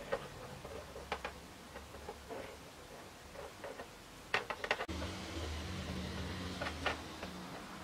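Light clicks and taps of thread and fingers handled at a sewing machine's needle plate and presser foot, with a quick cluster of sharp clicks about four and a half seconds in. A steady low hum starts just before five seconds in.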